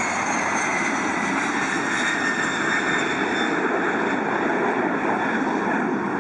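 Airplane jet engine running: a steady rush with high whining tones that slowly drop in pitch.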